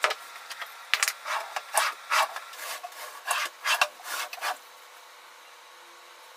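A wooden drawer sliding on metal drawer slides: a quick series of rubbing, scraping strokes that stops about four and a half seconds in.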